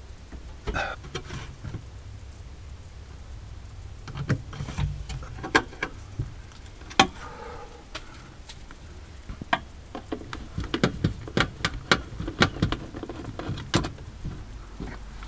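A screwdriver working screws into a refrigerator's sheet-metal interior panel: irregular small clicks and knocks of the tool and metal parts, coming thicker in the second half.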